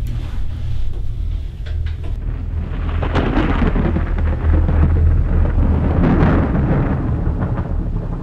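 A deep, steady rumble on the film's soundtrack, with a rush of noise that swells about three seconds in and again around six seconds.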